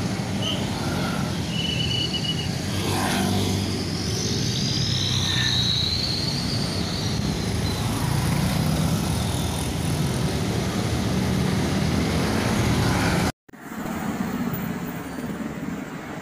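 Road traffic: cars, trucks and motorcycles running past on a busy street, with a few brief higher-pitched tones in the first several seconds. The sound cuts out for an instant about thirteen seconds in and comes back quieter.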